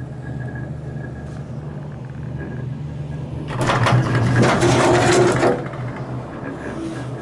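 Inside a Leitner six-seat gondola cabin running down the line: a steady low hum, then about three and a half seconds in a loud rattling rumble lasting about two seconds as the cabin's grip rolls over a tower's sheave train.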